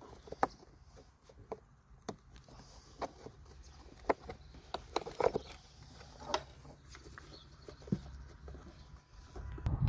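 Irregular light clicks and taps of a flathead screwdriver and plastic parts as a number plate light is prised out of the tailgate.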